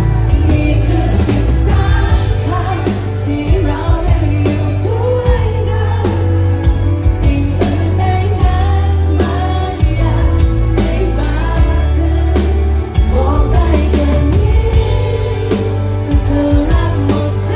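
A woman singing live into a handheld microphone, backed by a band with bass guitar, acoustic guitar and drums, with a strong bass.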